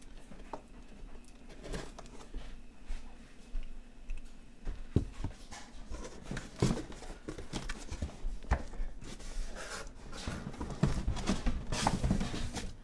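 A cardboard shipping box being handled and opened by hand: irregular scraping, rustling and knocks of the cardboard, busier and louder from about five seconds in, as the flaps are pulled apart.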